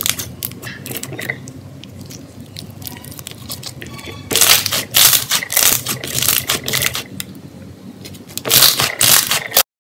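Slime being squeezed and pressed by hand, giving off dense crackling and popping in two louder spells, the second cutting off abruptly near the end.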